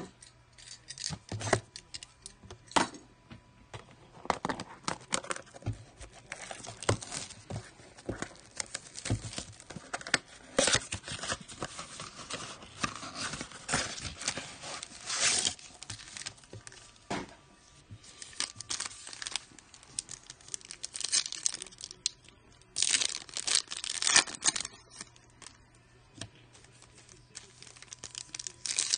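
Wrapping of a Panini Prizm trading-card blaster box being torn open and crinkled, and its foil card packs rustling as they are handled: a run of crackling tears and rustles, loudest in short spells about halfway through and again about two-thirds through.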